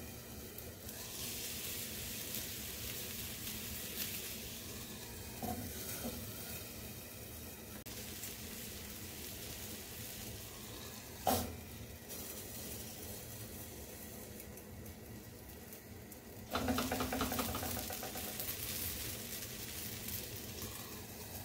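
Marinated tandoori chicken drumsticks sizzling in a pan, a steady frying hiss. There is a single sharp tap about eleven seconds in, and the sizzling grows louder about sixteen seconds in.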